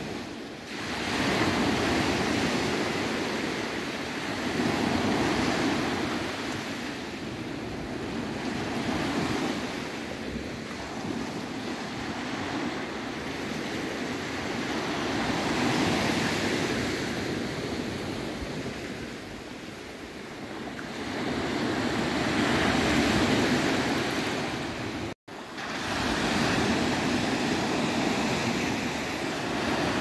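Small Mediterranean waves breaking and washing up a sandy beach, the surf swelling and fading every few seconds. The sound cuts out for an instant near the end.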